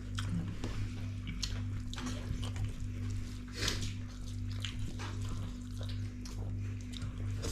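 Close-up eating sounds: irregular wet slurps, chewing and mouth clicks of someone eating mustard-greens soup, over a steady low hum.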